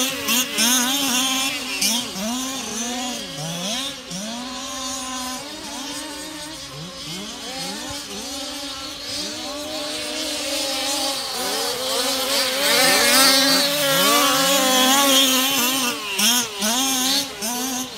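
Several 1/5-scale RC cars' small two-stroke petrol engines running at once, their pitch rising and falling as they rev, ease off and pass by. Loudest at the start and again past halfway.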